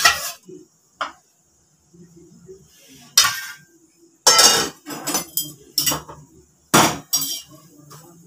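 Stainless-steel kitchenware, tongs, plates and pots, clinking and clattering against each other and the gas stove while rotis are cooked, in about ten sharp, irregular knocks.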